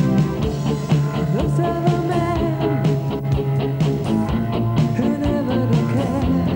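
Rock music with a wavering lead melody line over a steady bass and drums.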